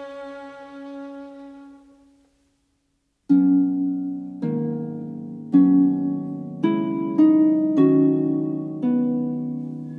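Background music: a held string note fades out, then after a brief silence plucked notes sound one by one, about one a second, each ringing and decaying.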